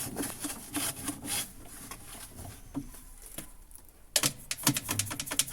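Hands working on a washing machine's plastic parts during cleaning: irregular rubbing and light knocks, then a fast run of scraping strokes, several a second, starting about four seconds in.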